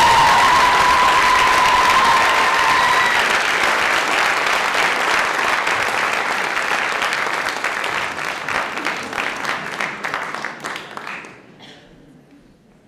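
Audience applauding, with high held cheering voices over the clapping in the first few seconds. The applause thins into scattered claps and dies away about eleven seconds in.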